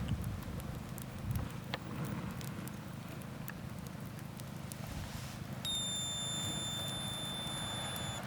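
Campfire crackling, scattered sharp pops over a low steady rumble. About two thirds of the way in, a steady high-pitched whistle-like tone starts suddenly and holds for about two and a half seconds before cutting off.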